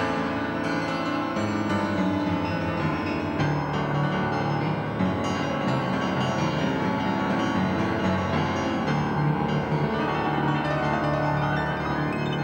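Solo acoustic piano playing a jazz ballad in full, sustained chords.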